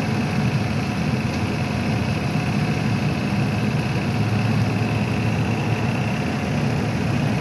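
Car engine idling steadily with the air-conditioning compressor running, a constant low hum with a faint steady whine above it.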